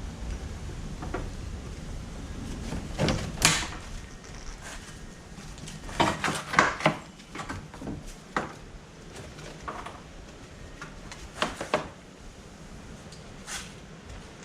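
Scattered knocks and clicks of hard objects being handled, in short clusters about three, six and eleven seconds in.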